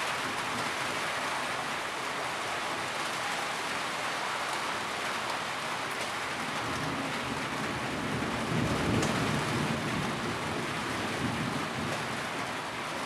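Steady rainfall, an even hiss of rain hitting surfaces. A low rumble swells briefly about two-thirds of the way through.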